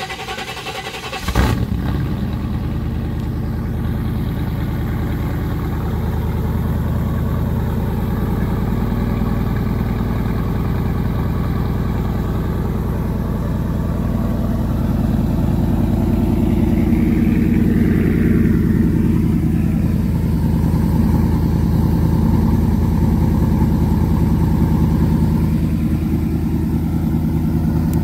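Cold start of a 1990 Chevrolet C1500's built 350 V8 with headers and a Borla exhaust: the starter cranks briefly, the engine fires about a second and a half in, then idles steadily.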